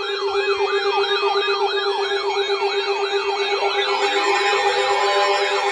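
Electronic siren in a fast yelp, rising and falling about three times a second over a steady held tone. A second, slower rising wail joins in after about four seconds.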